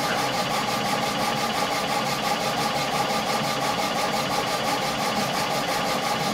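Epilog Fusion CO2 laser engraver running while raster-engraving a film-masked glass bowl: a steady machine hum with a fast, even pulsing as the laser head sweeps back and forth.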